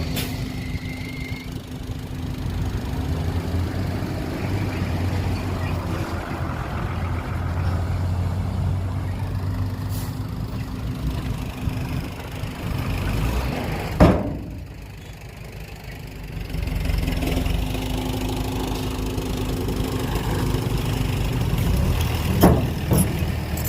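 Heavy diesel engine of earthmoving machinery running steadily. About fourteen seconds in there is one loud sudden sound, and the engine drops quieter for a couple of seconds before it picks up again. A few sharp knocks come near the end.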